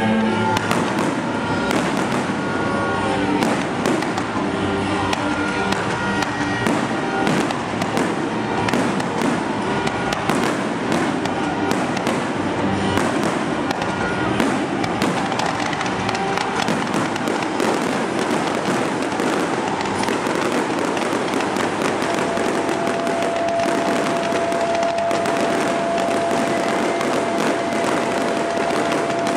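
Fireworks display: aerial shells bursting in a dense, continuous barrage of bangs and crackles. Music plays underneath for the first several seconds, and a steady high tone is held for the last several seconds.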